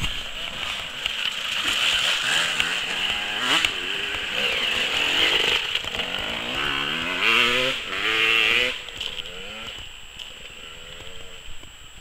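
Off-road enduro motorcycle engines revving and accelerating, their pitch climbing again and again as the riders open the throttle, loudest about eight seconds in and then dropping away as the bikes move off.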